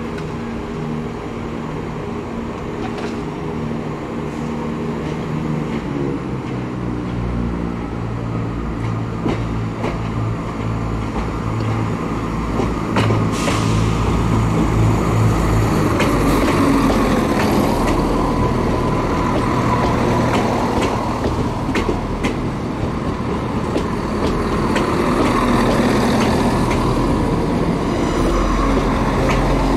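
Class 170 Turbostar diesel multiple unit pulling out under power: its underfloor diesel engines rev up, and the note grows louder as the carriages roll past, with wheel noise and a few sharp clicks.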